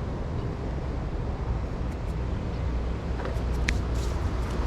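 Plastic wiring-harness connectors being unplugged in a car's engine bay: a few short clicks, the clearest near the end, over a steady low rumble.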